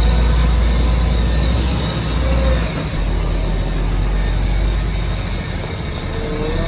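Heavy diesel earthmoving machinery running, with a deep engine rumble that eases about three seconds in, and short high squeals twice.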